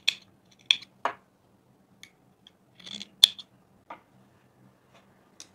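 Scissors snipping through black lining fabric, cutting out a corner notch of a bag lining: a handful of short, separate snips, the loudest a little past halfway.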